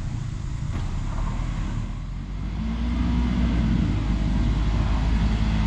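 Side-by-side UTV engine working under load on a rock climb, revving up and getting louder about two and a half seconds in.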